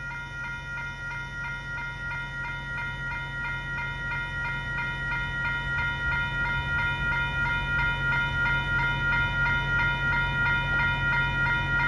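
Railroad grade-crossing warning bells ringing continuously in quick, even strokes, growing slowly louder, over a steady low rumble from the train on the crossing.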